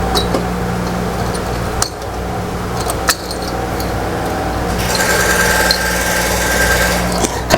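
Handling noise and two sharp plastic clicks from fitting the push pins of an Intel stock CPU cooler into a motherboard, over a steady mechanical hum. A brighter whirring layer joins the hum for the last couple of seconds.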